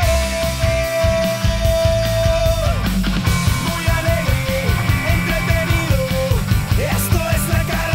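Upbeat rock-style theme music: drums and bass keep a steady beat under a lead melody that holds one long note for the first few seconds, then moves in short, bending phrases.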